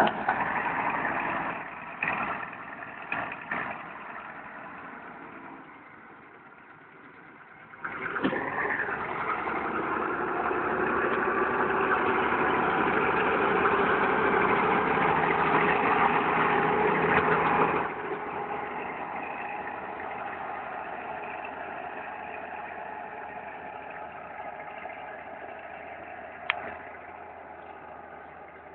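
Massey Ferguson 650 HD tractor's diesel engine running steadily under load as it pulls a disc plough. It grows suddenly louder about a third of the way in, then fades gradually as the tractor works away. A few knocks early on and a single sharp click near the end.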